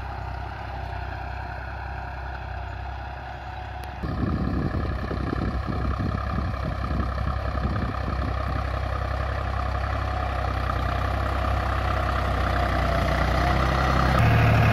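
Deutz-Fahr tractor's diesel engine running steadily under load while pulling a cultivator through dry soil. The sound jumps louder about four seconds in, then grows steadily louder as the tractor comes closer.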